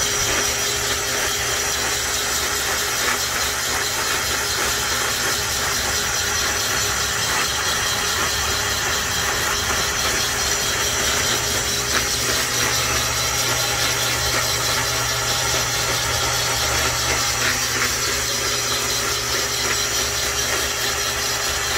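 Portable cylinder boring bar running steadily while boring out a cylinder of a cast-iron 327 small-block Chevy engine block, a steady hum with a thin high whine.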